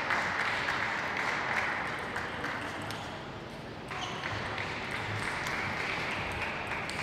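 Audience applause after a point in a table tennis match, starting suddenly and again about four seconds in, with a few faint clicks of the ball.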